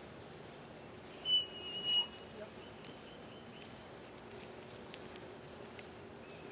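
A single clear, high whistled note about a second in, held for well under a second, followed by a few fainter short high notes.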